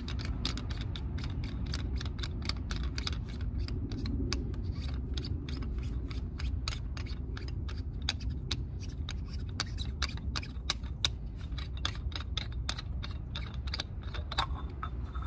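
A quick, irregular run of small clicks and scrapes over a low rumble: the oil catch can being worked loose and unscrewed from the engine bay to check the oil it has caught.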